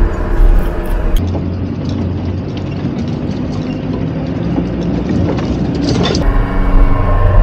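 Off-road 4x4's engine running steadily as it climbs a rocky gravel track, heard from inside the cab. For several seconds in the middle the engine drone gives way to a rougher rushing noise, then the engine drone returns near the end.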